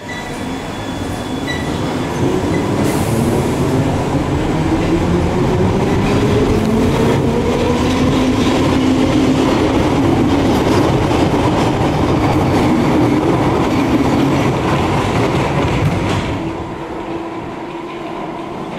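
London Underground train pulling out of the platform and accelerating: a rising whine over the rumble and clatter of wheels on rail. The sound drops away about sixteen seconds in as the train leaves into the tunnel.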